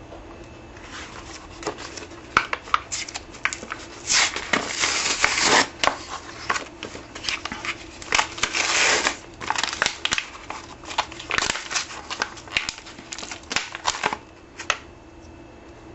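J-B Weld cardboard-and-plastic blister pack being torn open by hand: irregular crinkling, ripping and clicking of card and plastic, loudest about four seconds in and again around eight seconds in, dying away near the end.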